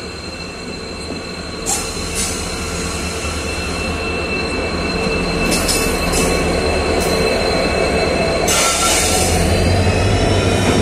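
Pair of WDG4D diesel locomotives, each with a 16-cylinder two-stroke engine, passing close by at the platform: a deep engine rumble that grows louder, a steady high-pitched squeal, and a few clacks. A loud hiss sets in about eight seconds in.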